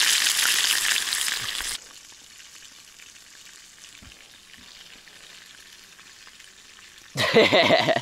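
Burger patties of minced meat sizzling in hot sunflower oil in a frying pan: a loud, even sizzle that cuts off abruptly about two seconds in, leaving only a faint hiss.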